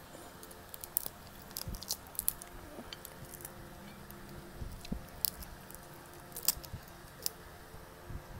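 Close-up chewing and wet mouth sounds, with many short sharp smacks and clicks scattered irregularly.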